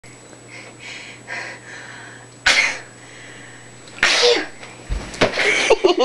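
A girl sneezing twice during a sneezing fit, two sharp bursts about a second and a half apart, followed by short voice sounds near the end.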